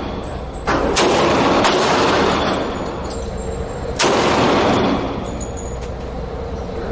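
Semi-automatic pistol shots fired in an indoor range booth: a few sharp shots close together in the first two seconds and one more about four seconds in, each with a long reverberant tail off the range walls.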